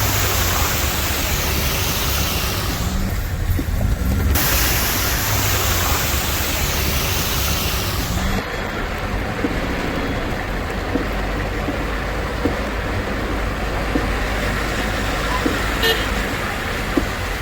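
Steady hiss of heavy monsoon rain over road traffic; the hiss drops away sharply about halfway through, leaving vehicles running in the street, and a car horn gives a short toot near the end.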